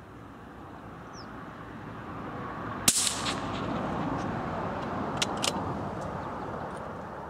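A single rifle shot from a CZ .17 HMR bolt-action rifle about three seconds in, fired over a chronograph that clocks it at 2,753 fps. Two sharp clicks follow about two seconds later, over a background rush that swells and slowly fades.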